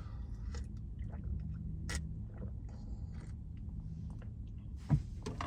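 Someone sipping a drink: small mouth sounds and clicks over a steady low hum.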